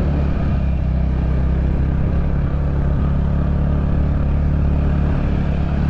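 Motorcycle engine running steadily at an even pitch while riding.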